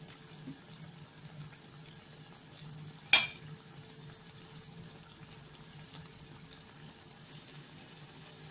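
Piped choux-dough fingers (bulah al-sham) frying in a pot of oil that started cold: a faint steady fizz and crackle of small bubbles, over a low steady hum. One sharp click stands out about three seconds in.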